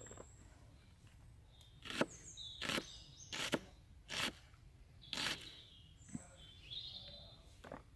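Knife chopping vegetables: about seven sharp cuts, unevenly spaced and less than a second apart. Birds chirp now and then in between.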